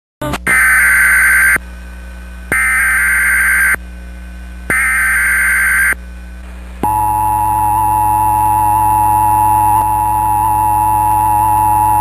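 Emergency Alert System alert opening: three bursts of SAME digital header data, a harsh warbling screech about a second long each, with a second's gap between them. Then, from about seven seconds in, the steady two-tone EAS attention signal. Together they announce the start of an alert.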